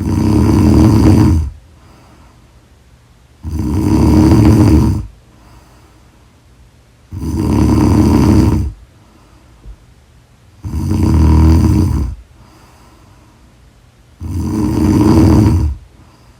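A woman snoring loudly and regularly: five long snores, one about every three and a half seconds, with quiet breathing between them.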